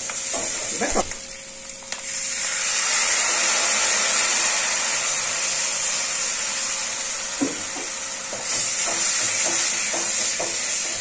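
Tomato paste hitting hot oil and spices in a steel kadai, sizzling and hissing loudly from about two seconds in. In the last few seconds a steel spatula stirs the mixture, with light scraping clicks over the sizzle.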